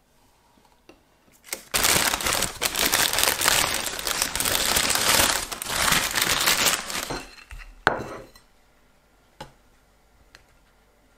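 Paper bakery bag crinkling loudly as hands open it, for about five seconds, then a single sharp knock about a second after the rustling stops.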